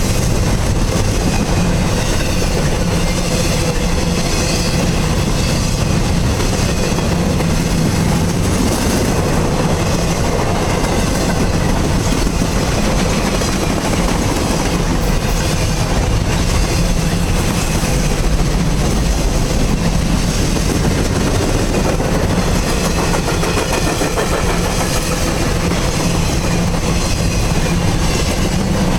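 Freight train's container cars rolling past in a steady, loud rumble, wheels clicking over the rail joints.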